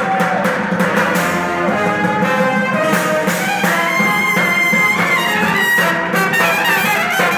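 Live brass band music: a trumpet and a trombone playing a lively tune over a fast drum beat, with the trumpet holding one high note about four seconds in.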